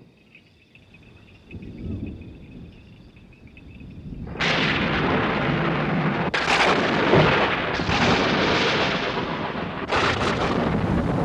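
Thunderstorm: a low rumble of distant thunder, then loud thunderclaps breaking suddenly about four and a half, six and ten seconds in, each rolling on into heavy rumbling.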